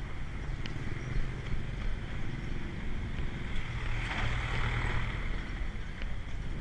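Street traffic with wind noise on the microphone of a camera carried on a run. A louder rushing noise swells about four seconds in as a small truck passes close by.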